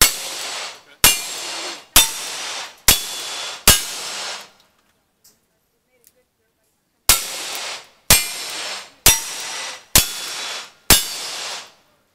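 Revolver fire: two strings of five single shots, about one a second, with a pause of about three seconds between the strings. Each shot trails off in a short ring.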